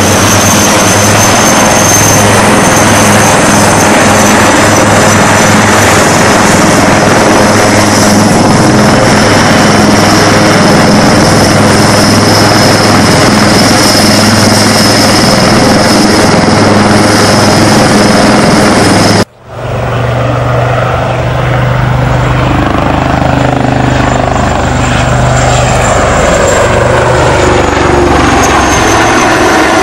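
HAL Light Combat Helicopter, a twin-turboshaft attack helicopter, flying low display passes: a steady rotor beat under a high turbine whine. About two-thirds through the sound cuts out abruptly and comes straight back, the whine then gently rising and falling.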